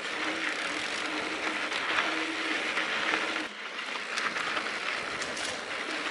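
Mountain bike rear freehub ratcheting while coasting, a steady buzz that cuts off about three and a half seconds in. Underneath it runs the hiss and rattle of the bike rolling over a dirt trail.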